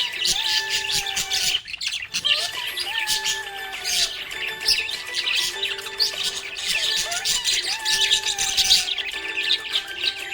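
Budgies chirping and chattering rapidly and without pause, over background music with a slow, held melody.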